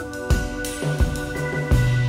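Rock band playing an instrumental passage: a drum kit keeps a steady beat, about three hits every two seconds, under a Hammond organ's held chords and low bass notes that shift a few times.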